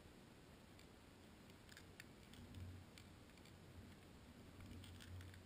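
Near silence, with faint scattered clicks and a faint low hum that swells briefly twice.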